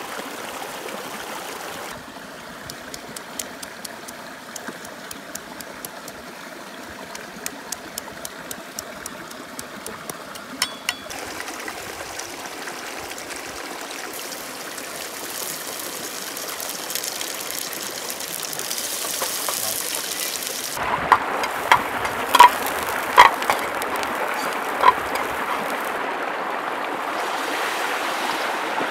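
A stream running over rocks, a steady rush of water. About twenty seconds in, a metal spatula strikes a pan several times in ringing clanks as pasta and shrimp are tossed in it.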